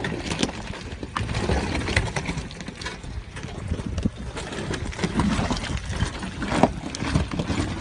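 Toyota Hilux pickup creeping down a steep rocky slope: its tyres crunch and grind over loose stones, with irregular knocks and clatters of rock under the wheels over a low rumble.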